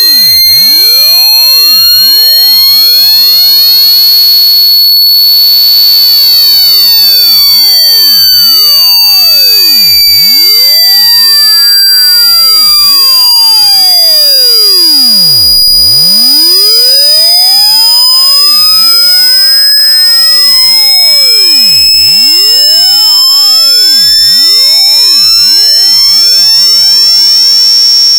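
Vocoded wave sound effect: a loud, piercing electronic high tone slowly rising in pitch, crossed by many fainter tones that sweep up and down in arcs, with no break.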